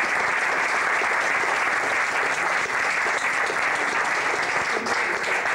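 Theatre audience applauding steadily, a dense wash of many hands clapping.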